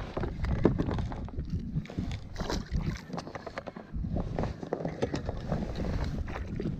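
Irregular knocks, scrapes and rubbing as a stringer rope is handled over an inflatable boat's side tube, over a low rumble of wind on the microphone.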